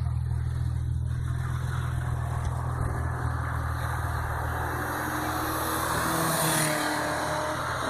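A BMW accelerating down the track toward the listener, its engine growing louder and loudest about six and a half seconds in as it passes close, then easing off. A steady low hum runs underneath.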